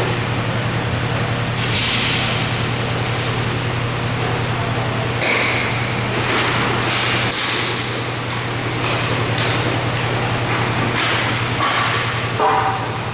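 Inline roller hockey in play in an indoor rink: scattered sharp clacks and knocks of sticks and puck, and swishes of skate wheels, over a steady hum of the hall.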